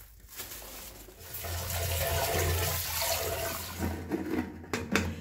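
Water pouring in a steady rush, starting a little over a second in and lasting about three and a half seconds.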